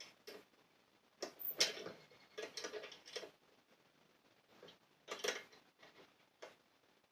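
Light knocks and clinks of objects being handled, in uneven clusters with short pauses between.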